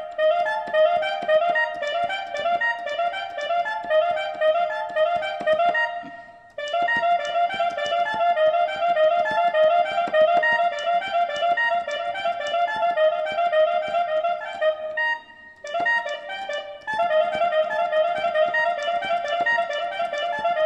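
A cumbia keyboard part of quick, short repeated notes played on an M-Audio MIDI keyboard, with brief breaks about six seconds in and again about fifteen seconds in.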